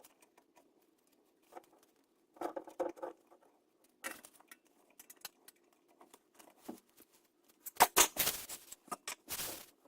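Scattered small clicks, rustles and scrapes of hands working on parts, turning into a denser, louder run of knocks and scraping near the end.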